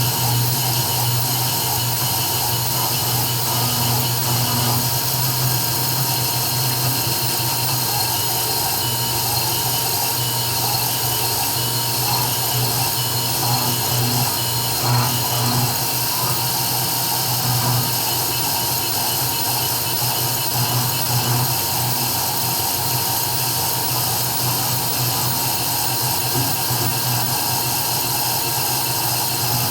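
CNC 3040 desktop router engraving, its spindle motor running steadily with a constant low hum and a high hiss.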